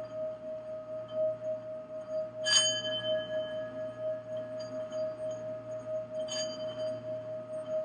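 Singing bowl ringing with one steady, pulsing tone, while a higher metallic chime is struck twice, about two and a half seconds in and again near the end, each strike ringing briefly with bright overtones.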